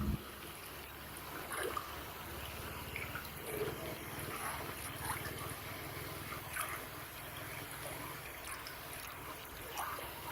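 Water trickling and dripping steadily, with many small scattered drips.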